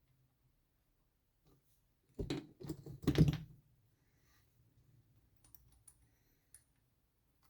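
A short burst of hard knocks and rattles, as tools and metal engine parts are handled on a workbench, about two seconds in. It is followed by faint scattered clicks.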